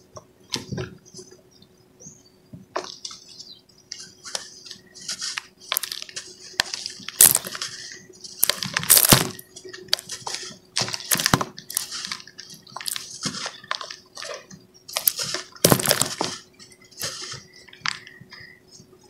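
Hands crumbling and rubbing cement clumps and powder in a tub: irregular gritty crunches and rustles, a few loud crunches among softer crumbling.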